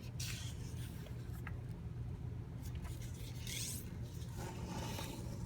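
Sheet of paper being folded and pressed flat: short scraping rustles near the start and again about three and a half seconds in, over a steady low hum.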